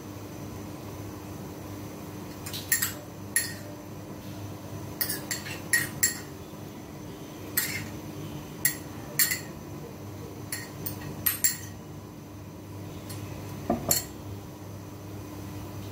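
A metal spoon clinking against a small ceramic bowl while scooping a chopped herb topping: a string of sharp, irregular clinks, the first about two and a half seconds in and the last shortly before the end, over a steady low hum.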